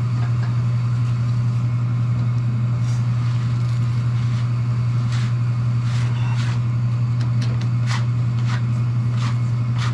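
Gas furnace running with its burner lit and blower fan on, a steady low hum with a few faint clicks; it has relit and is working properly after a new pilot sensor was fitted.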